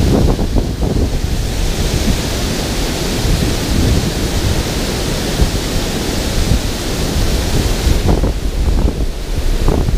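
Water rushing over a concrete spillway weir, a steady loud hiss, with heavy wind buffeting on the microphone that gives a rough rumble underneath. The hiss eases a little near the end.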